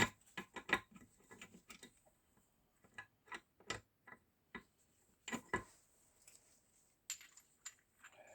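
Metal parts of a Zundapp KS 600 gearbox clicking and knocking against each other as they are handled and tried in place during reassembly. The clicks and taps come at irregular intervals, the sharpest one right at the start.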